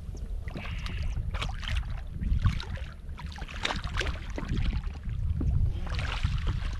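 Redfish thrashing at the water's surface beside a kayak as it is scooped into a landing net. Irregular splashes come over a steady low rumble.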